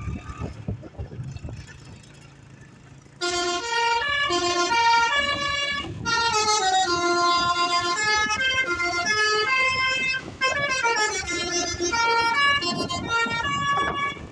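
A bus's multi-tone Basuri V3 'telolet' horn playing a rapid tune of stepped notes, starting about three seconds in after a low rumble.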